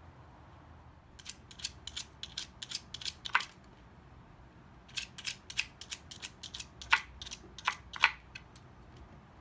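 Wooden tiles of a dog puzzle toy clacking and knocking in their wooden frame as a toy poodle noses them. The clicks come in two runs of about four a second, with a short pause between them and a few louder knocks.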